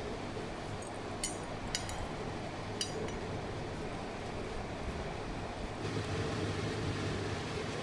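A steel ladle stirring thick spinach curry in a stainless steel pot, clinking sharply against the pot's side three or four times between about one and three seconds in, over a steady background hiss and hum that grows a little louder near the end.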